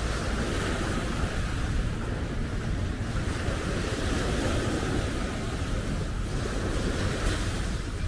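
Small sea waves washing up onto a sandy beach, with wind buffeting the microphone.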